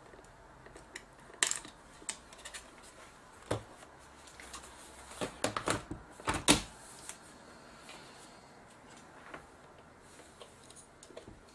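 Sharp plastic clicks and knocks from hands working a JVC GY-HD201E camcorder's body as its flip-out LCD screen is swung open. There are a few single clicks, then a dense cluster about five to six and a half seconds in, ending in the loudest knock.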